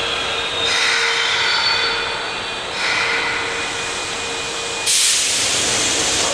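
Osaka Midosuji Line subway train standing at a platform with its doors open, giving a steady hum. Surges of hissing come and go, and a loud hiss starts suddenly about five seconds in.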